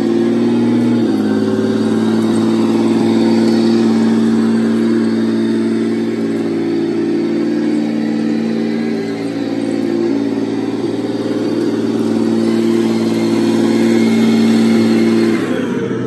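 Recorded Challenger 1 tank V12 diesel engine sound played by a Clark TK80 sound module through a small speaker on a 1/16-scale RC tank chassis as it drives, with the whine of its gearboxes and tracks underneath. The engine note holds steady with small shifts in revs, and falls near the end.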